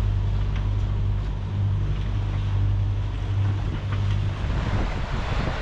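Sailing catamaran under engine: a steady low diesel hum mixed with wind buffeting the microphone and water rushing past the hulls. The hum weakens about four and a half seconds in.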